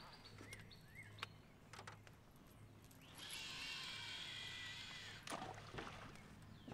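Fishing reel whirring as line pays out from the spool during a cast, for about two seconds starting about three seconds in, and ending with a click; a few faint clicks before it.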